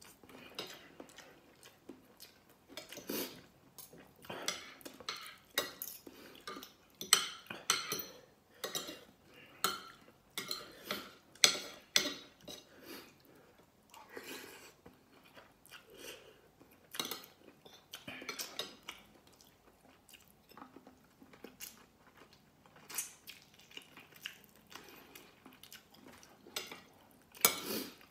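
Metal spoon and fork clinking and scraping against a plate of rice and soup in short, irregular strokes, with close-up chewing between them.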